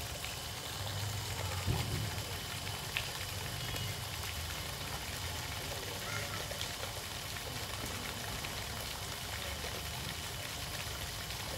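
Ornamental fountain jetting water from a twin-fish sculpture, spraying and splashing steadily into a shallow pool.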